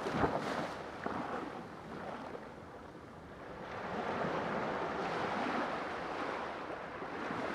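Sea waves washing on the shore: one wave's wash fades away in the first seconds, and the surf swells up again about halfway through.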